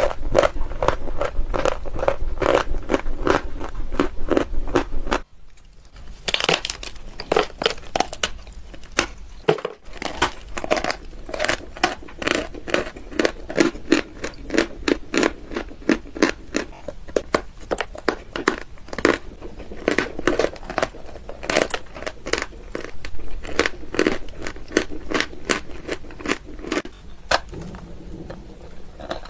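White chalk being bitten and chewed close to the microphone: a dense run of dry crunching and crackling, with a short quieter pause about five seconds in.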